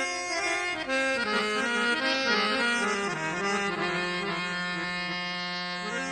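Harmonium playing the opening melody of a Gujarati devotional bhajan in sustained held notes, settling onto one long low note for the last three seconds or so.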